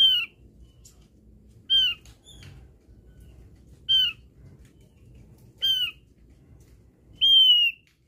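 Javan grey-throated white-eye (opior jawa) calling: a series of loud, clear falling notes, about one every two seconds, the last one held longer.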